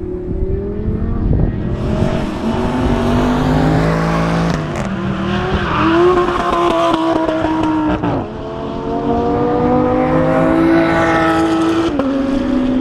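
Lamborghini Gallardo LP560-4's V10 engine accelerating hard through the gears, the pitch climbing and dropping back at each of three upshifts, with tyres squealing as the car slides through the corner.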